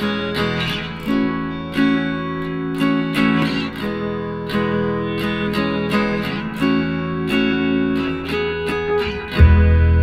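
Background music on guitar, notes plucked one after another, with a deep low note coming in near the end.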